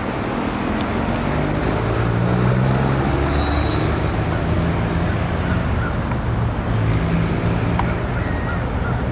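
Road traffic: a motor vehicle's engine running steadily over continuous road noise.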